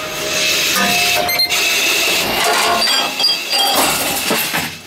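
Envipco ULTRA 48 reverse vending machine shredding returned containers: a dense, clattering noise with many sharp clicks that stops shortly before the end.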